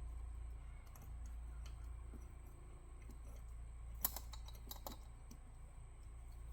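Irregular light clicks and taps of hands working straps and fasteners, with a few sharper clicks about four seconds in, over a steady low rumble.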